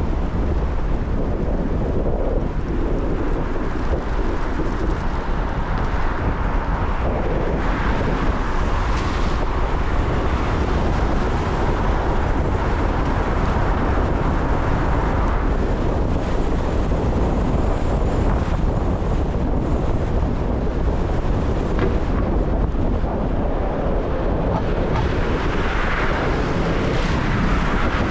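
Steady road noise of a car driving through a rainstorm: tyres hissing on wet pavement, with wind rumbling on the microphone.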